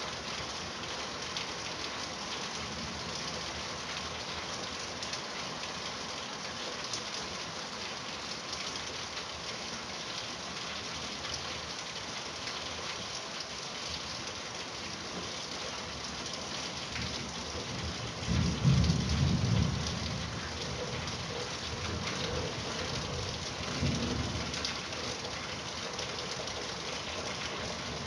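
Steady rain falling. About two-thirds of the way in, a loud low rumble of thunder, with a weaker roll a few seconds later.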